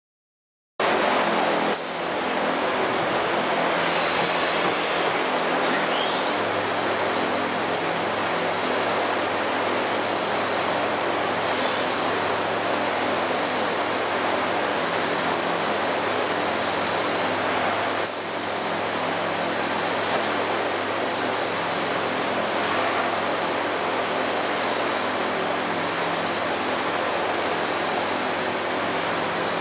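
1997 Haas VF-4 vertical machining center running: a steady loud machine noise that starts suddenly, then about six seconds in a high whine rises and holds steady, as when the spindle spins up to speed.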